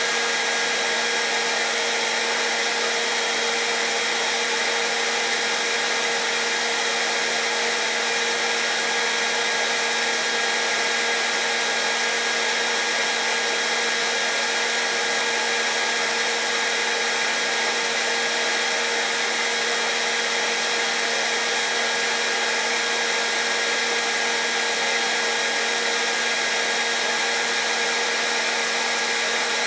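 Hair dryer running steadily: an even, continuous blowing rush with a constant motor hum and whine.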